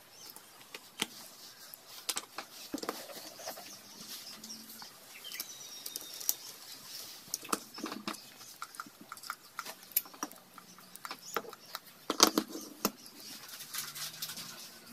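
Scattered light clicks and taps of a ring spanner and small steel parts being fitted to an engine's aluminium crankcase, with a sharper clack about twelve seconds in.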